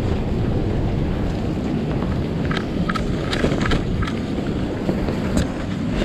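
Strong storm wind buffeting the microphone, a steady low rumble, with a few short, sharp higher sounds around the middle.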